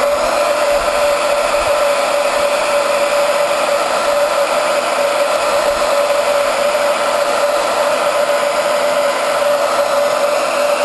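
Handheld blow dryer running steadily: a constant rushing whir with one steady tone through it. It is heating a urethane motorcycle tank pad so the glue on its back softens and sticks to the gas tank.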